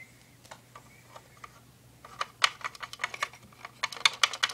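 Light clicks and taps of hard plastic toy parts being handled against a plastic toy house: a few scattered clicks at first, then a quick irregular clatter from about halfway in.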